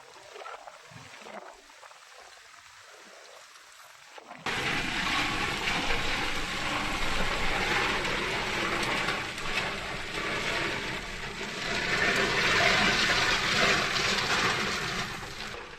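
Heavy rain pouring down: a steady, dense hiss of falling water that cuts in suddenly about four seconds in, after a few faint seconds.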